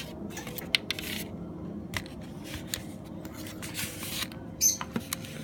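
Small tools working tiny screws inside a phone: scattered sharp clicks and light scraping, loudest about three-quarters of a second in and again near the end.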